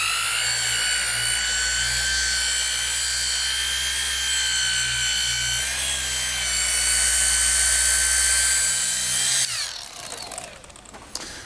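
Small cordless polisher buffing a carbon fiber mirror cover with a white pad: the motor whines up to speed right at the start, runs steadily with a slight rise in pitch about six seconds in, then winds down at about nine and a half seconds.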